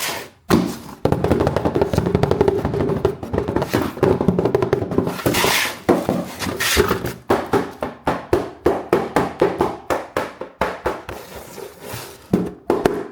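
Hands handling hard plastic toys and packaging: a dense run of taps, clicks and knocks that thins to a few sharp clicks a second from about halfway through.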